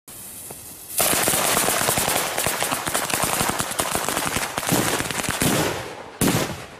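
Firecrackers going off in a fast, dense string of bangs, starting about a second in, with one more short burst near the end.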